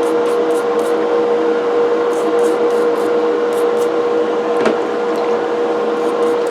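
A steady machine hum with a constant tone, and over it short scratchy strokes of a brush scrubbing the cast-iron grinder burr, with one sharp click about halfway through.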